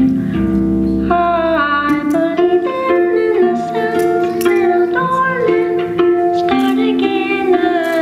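Music playing: a melody of plucked string notes, with singing, stepping quickly from note to note.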